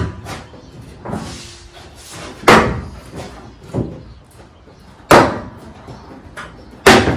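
Sheet-metal knocks as the inner fender well of a 1968 Pontiac Firebird is worked by hand up inside the front fender: three loud thumps with a short ring, about two seconds apart, and lighter knocks between.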